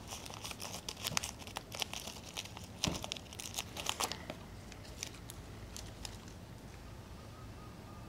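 Crinkling of plastic snack wrappers and ribbon being handled, dense for the first four seconds or so, then only now and then.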